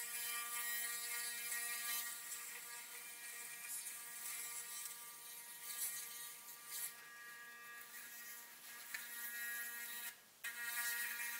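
Oclean Air 2 sonic electric toothbrush running on teeth fitted with braces: a faint, steady buzz. It cuts out for a moment about ten seconds in, then resumes.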